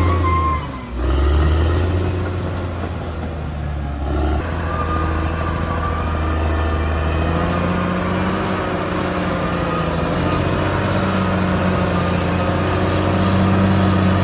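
Caterpillar D6R XL bulldozer's diesel engine running steadily. The sound dips briefly about a second in, and the engine note changes around four seconds in and rises again later.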